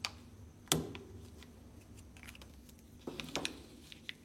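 Small metal handling clicks and knocks from Zippo lighters being put down and picked up: one sharper knock just under a second in, then a quick run of light clicks about three seconds in.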